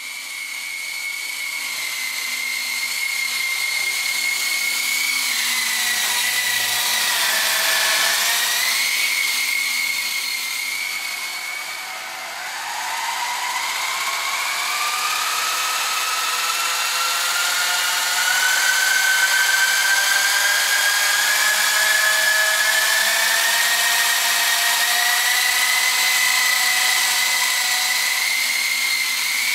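Small model helicopter's electric motor and spinning rotors making a steady high-pitched whine. About a third of the way in the pitch sags and the sound briefly fades, then a whine climbs steadily in pitch as the rotors spool up for lift-off.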